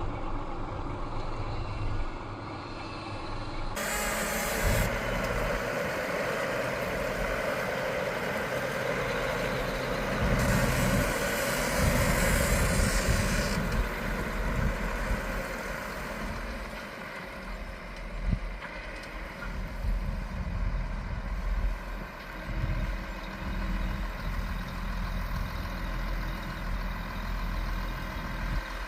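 Heavy farm machinery engines running steadily, with a louder stretch of mechanical noise from about four seconds in to about fourteen seconds. Near the end a low tone switches on and off several times.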